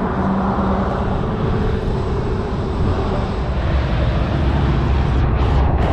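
Motorcycle running at road speed, a steady engine rumble under heavy wind rush.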